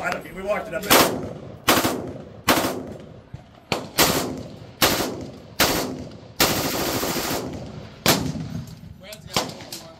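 HK33K 5.56 mm rifle firing a string of about ten shots, irregularly spaced roughly a second apart, each followed by an echo. Near the middle there is about a second of steady rushing noise.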